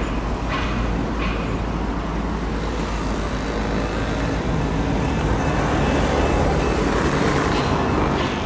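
Steady distant engine noise from a Cessna 172 single-engine light aircraft rolling along the runway, heard over a constant hum of traffic.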